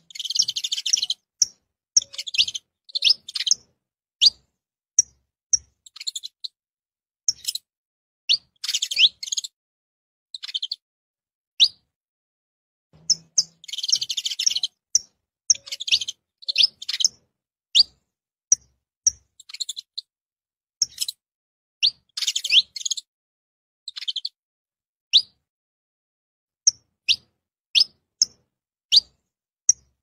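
Saffron finch (canário-da-terra) chirping: short, high, sharp notes, some single and some in quick runs, with a few denser bursts of rapid chirps.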